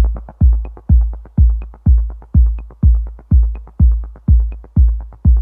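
Electronic dance music with a heavy kick drum on a steady beat about twice a second and quick hi-hat ticks between the beats.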